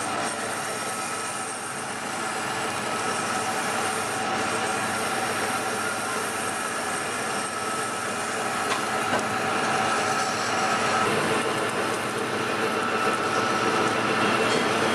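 Workshop machine running steadily: a constant rushing noise with several unchanging high squealing tones over it.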